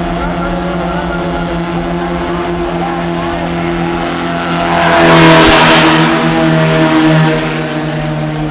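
Racing boat engines running hard with a steady drone, growing louder with a rush of hiss about five seconds in as a boat passes close, then easing back. The boats are garden-watering boats converted for racing.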